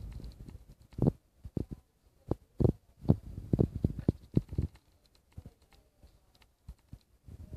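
Irregular low thumps and rumbling close to a handheld camera's microphone, with a quieter stretch past the middle.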